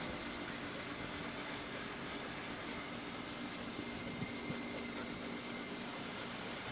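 Steady background hum and hiss with a faint high whine, unchanging throughout, with no distinct sounds standing out.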